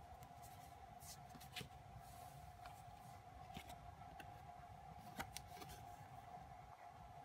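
Faint clicks and light rustling of stiff photocards being handled and flipped over in the hands, the sharpest click about five seconds in, over a steady faint hum.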